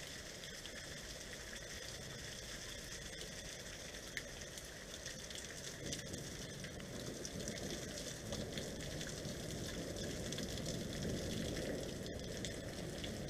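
Hailstorm: hail and rain falling steadily, a pattering hiss with scattered small hits, swelling a little louder from about halfway through.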